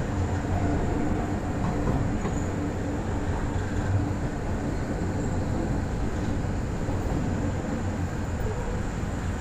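Kanto Railway KiHa 310 series diesel railcar running, heard from behind the driver's cab: a steady engine drone with a low hum under the rolling noise.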